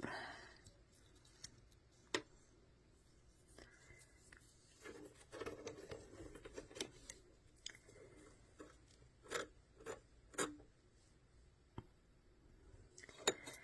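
Faint scraping and rubbing, with scattered light clicks, from lint being cleaned out of a lint-clogged sewing machine; the rubbing is steadiest about five to eight seconds in.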